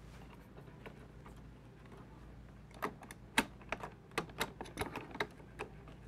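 Sharp clicks and taps of tools on the metal terminals and mounting straps of a wall switch, about ten of them in the second half, irregular and of varying strength, from handling at an open switch box.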